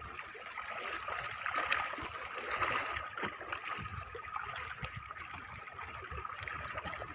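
Small sea waves lapping and washing against the rocks of a seawall, in irregular small surges.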